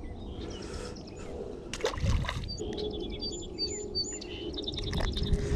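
A small bird singing a quick run of short, high notes in the second half, over faint outdoor background noise, with a knock of handling noise about two seconds in.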